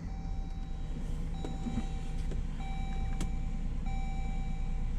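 Jeep Grand Cherokee HEMI V8 idling steadily with a misfire on cylinder 5, set by an open circuit on injector 5, just after the injector connector was unplugged and plugged back in. A pitched beeping tone repeats over the idle in pulses about a second long.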